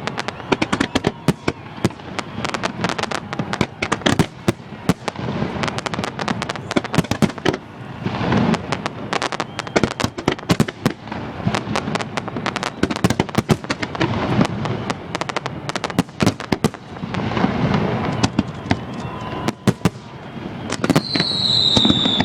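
Fireworks display bursting close overhead: a dense, continuous barrage of sharp bangs and crackles, with deeper booms swelling in twice and a high whistle near the end.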